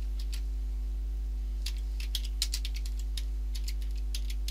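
Keystrokes on a computer keyboard: a scattered run of light clicks, bunched about two seconds in and again towards the end. A steady low electrical hum runs underneath.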